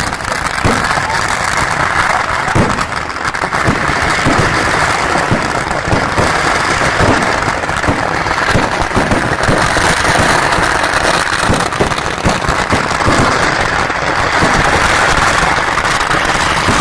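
A dense, unbroken barrage of fireworks: many sharp firecracker bangs a second overlapping into a continuous crackle.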